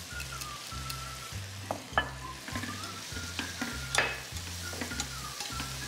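Chicken pieces, onion, carrot and scallion sizzling in a hot pan as they are stir-fried with wooden chopsticks, with light clicks of the chopsticks against the pan, the sharpest about two and four seconds in.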